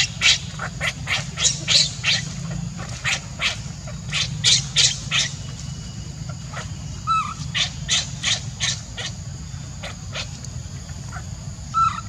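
Baby macaque crying in distress: a run of short, high-pitched squeals repeated two or three times a second, easing off briefly just past the middle before starting again.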